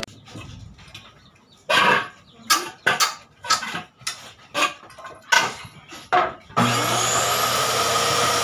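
A string of about nine short, rough scraping noises, then a bit over six seconds in an electric power-tool motor starts abruptly, winds up briefly and runs steadily with a low hum.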